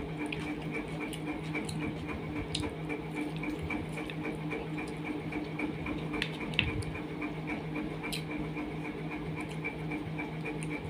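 Fingers squishing and mixing rice with curry on a steel plate, with scattered soft clicks, the sharpest about six and a half seconds in. A steady, evenly pulsing hum runs underneath.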